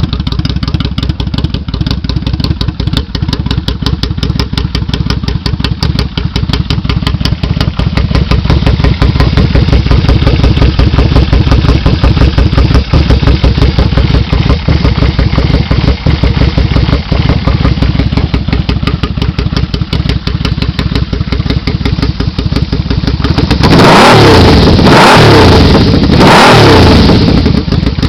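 Yamaha V-Max 1200's V4 engine idling through a 4-into-4 exhaust with a fast, even pulse, then revved twice in quick succession near the end, the pitch rising and falling each time.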